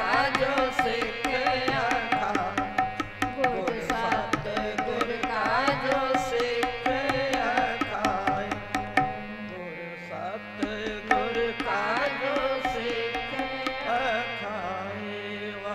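Sikh kirtan: women singing devotional hymn lines over sustained harmonium chords, with tabla drumming. The tabla strokes thin out after about nine seconds and the music grows quieter toward the end.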